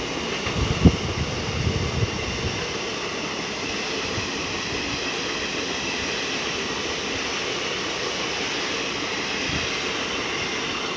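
Passenger train coaches rolling slowly past on the rails, a steady rushing rumble with a few low wheel knocks in the first two seconds.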